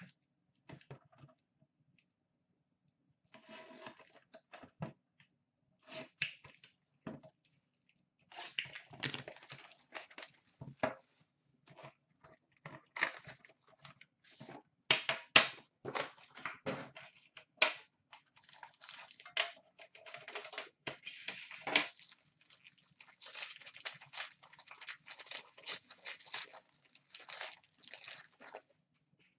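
Plastic wrapping and a foil card-pack wrapper torn open and crinkled by hand, in irregular rustling, crackling bursts that begin after a couple of quiet seconds.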